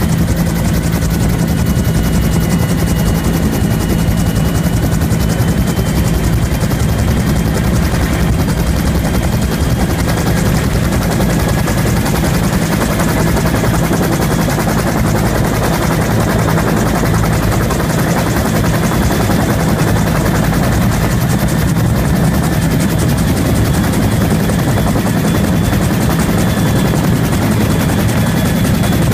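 Bell UH-1 "Huey" helicopter heard from on board: the steady beat of its rotor over the running turbine engine, with a thin whine that rises slowly in pitch, as the aircraft descends and sets down.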